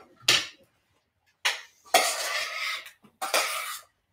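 A utensil clinking and scraping inside a stainless steel saucepan as zucchini is stirred into curry sauce. There is one sharp clink near the start, then two longer stretches of stirring and scraping, about a second and a half in and again near the end.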